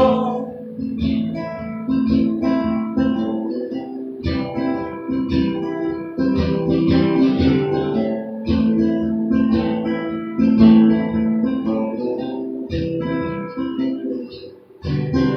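Acoustic guitar playing an instrumental passage of plucked and strummed chords, with no singing.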